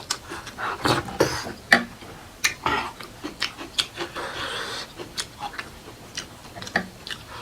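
Close-miked eating: wet chewing with irregular mouth clicks and lip smacks, and a breathy slurp or breath about four seconds in.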